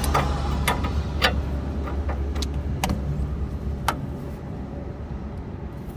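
Hand tools clinking against metal: several sharp, separate clicks a second or so apart, as a socket is tried on the tie-rod bolts, over a steady low rumble.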